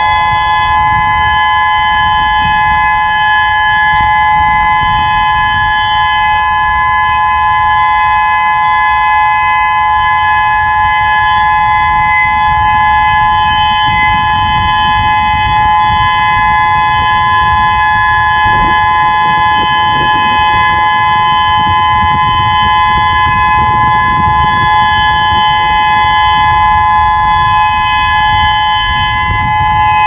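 Federal Signal DSA 6x2 electronic outdoor warning siren, two columns of six horn speakers, sounding a steady tone of two high notes held without change during a siren test, with a low rumble underneath.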